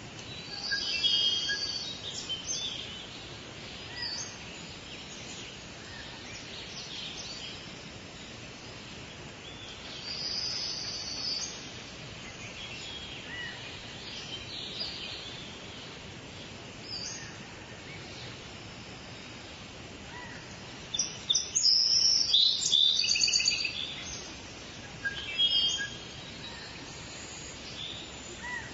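Forest songbirds chirping and singing in scattered bouts over a steady background hiss, the loudest and busiest burst of song about three-quarters of the way through.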